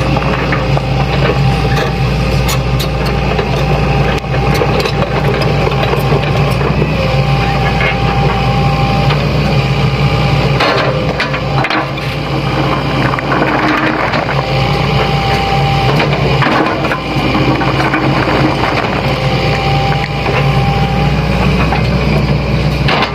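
Sany excavator's diesel engine running steadily under load, with a hydraulic whine that rises in several spells, and stones knocking and scraping as the machine moves them.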